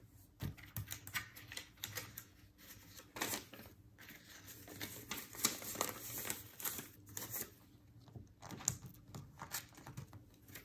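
Paper banknotes being picked up and handled, with crisp irregular rustles and flicks of the bills and paper envelopes being shuffled.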